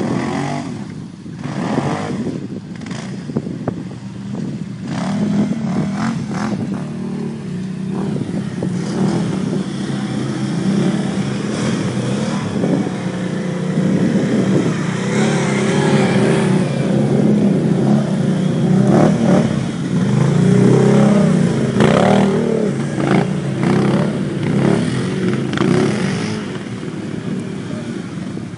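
ATV engine running and revving as the quad is ridden, the engine note rising and falling with the throttle and growing louder in the middle, with repeated bursts of rushing noise over it.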